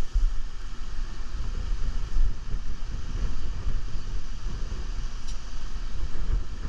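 Air-conditioner condenser unit running, with its compressor and fan going. An uneven low rumble of wind buffets the microphone over it.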